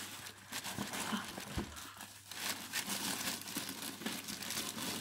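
Crinkling and rustling from something being handled right by the microphone, with one soft knock about one and a half seconds in.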